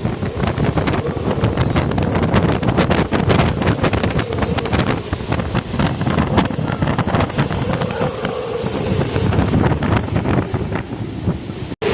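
Hurricane-force eyewall wind gusting hard and blasting the microphone with loud, constant wind noise. The noise drops out for an instant near the end.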